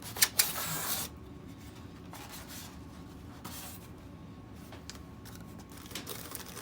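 Packing material from a ceiling fan box being pulled off and handled. It starts with a loud scraping rustle about a second long, with two sharp clicks in it, then faint rubbing and rustling.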